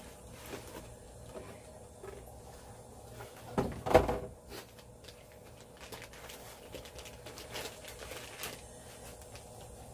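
Unboxing handling noise: faint rustling and small clicks as a box and its packaging are handled, with two knocks close together about three and a half to four seconds in, the second the loudest thump.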